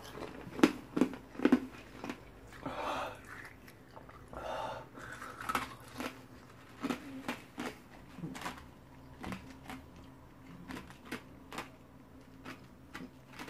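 A man breathing hard in short noisy breaths, with many sharp mouth clicks and smacks, the loudest about a second in: his reaction to the lingering burn of a Carolina Reaper chili.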